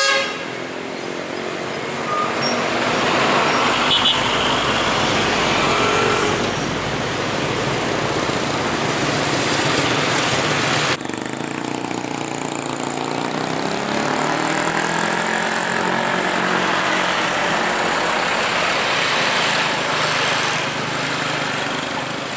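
Busy road traffic close by: a bus, trucks and motorcycles drive past with engine and tyre noise. Motorcycle engines rise and fall in pitch as they pass, and a vehicle horn sounds briefly.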